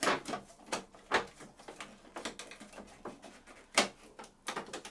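Plastic knocks and clicks as a printer's rear cover panel is pushed and worked into place, irregular, with sharp ones near the start and about four seconds in.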